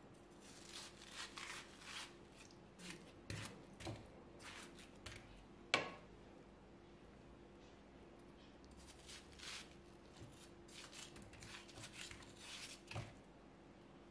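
Kitchen knife slicing watermelon flesh away from the rind in short, crisp strokes, in two bouts with a pause between. A sharp knock about six seconds in and a duller knock near the end.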